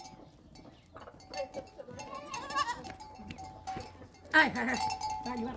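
Sheep bleating: a wavering bleat about two seconds in, then a louder call near the end.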